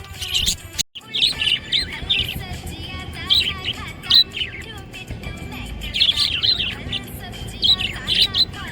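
Budgerigar chirping and warbling in quick clusters of short, high chirps, with a brief break about a second in.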